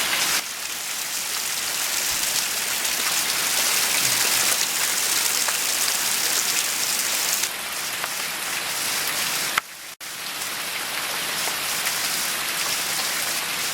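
Steady rain falling hard, a loud even hiss that breaks off for a moment about ten seconds in.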